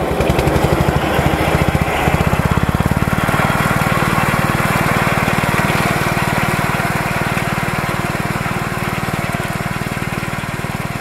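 Xingtai 120 compact tractor's single-cylinder diesel running with a fast, even chugging while driving a belt-driven rotary mower through grass. The engine note shifts about two seconds in, then holds steady.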